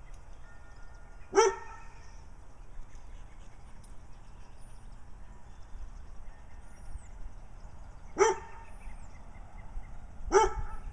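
A dog barking: three single, sharp barks, one about a second in and two near the end, about two seconds apart.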